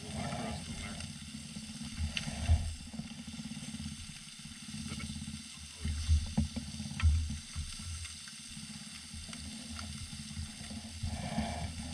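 Striped bass fillets sizzling in a metal toaster-oven pan on a portable stove, with a low rumble underneath and a few sharp knocks about two and a half seconds in and again around six to seven seconds in.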